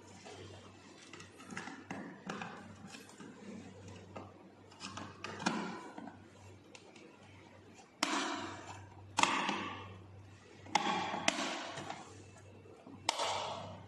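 A series of sharp knocks and clatters, like hard parts being handled and set down, each followed by a brief scrape or rattle. The loudest five come in the second half. A steady low hum runs underneath.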